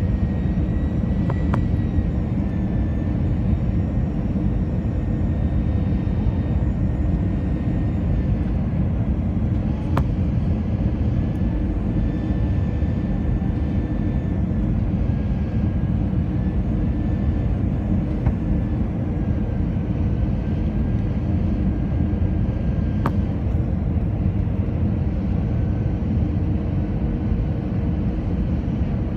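Steady cabin roar of an Airbus A318-111 on final approach, heard inside the cabin: engine and airflow noise from its CFM56 engines, with a faint high whine that wavers slightly in pitch. Two faint clicks, one about ten seconds in and one later on.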